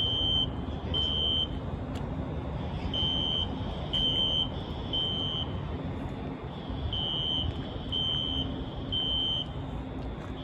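Fire alarm sounding the temporal-three evacuation pattern: three high beeps, each about half a second long and a second apart, then a pause of about a second and a half, repeating. A steady low rumble runs underneath.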